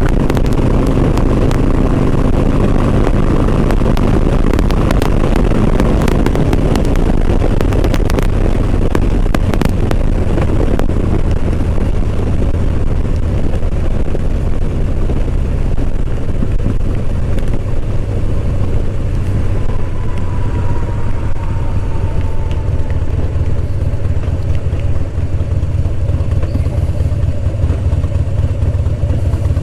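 Engine and road noise from a moving vehicle in traffic: a steady low rumble with a noisy haze above it. Scattered clicks come in the first third, and a faint, slightly falling tone sounds about two-thirds of the way in.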